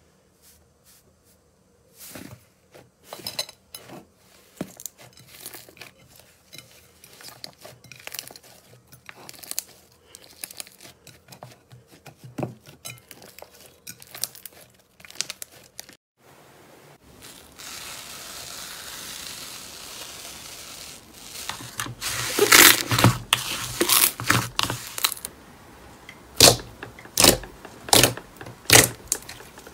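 Hands squeezing and pressing slime: a long run of small crackling pops as trapped air is squeezed out. A steady hiss comes in for a few seconds in the middle, then from about three-quarters through come louder, separate pops about a second apart as air pockets are pressed out of a sheet of glossy slime.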